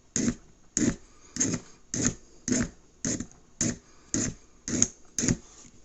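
Leatherman Rev multi-tool's wood/metal file being drawn back and forth over a workpiece: about ten even rasping strokes, roughly two a second.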